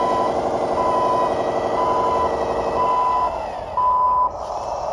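Simulated wheel-loader diesel engine sound and a reversing beeper, both produced by the ESP32 sound and light controller in a 3D printed 1:14 RC Volvo L120H loader; the beeper sounds five times, about once a second. A little over three seconds in the engine sound drops away, leaving a duller hiss under the last beep.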